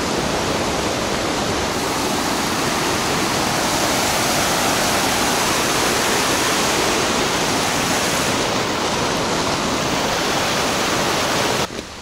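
Mountain stream of the Cascade du Dard rushing and splashing over boulders in a steady, loud white-water rush. It cuts off abruptly just before the end.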